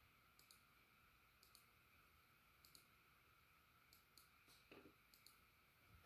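Near silence: faint pairs of light clicks, roughly one pair a second and spacing out a little, over a faint steady hum, as a Wing TAT Windward ceiling fan coasts down toward a stop.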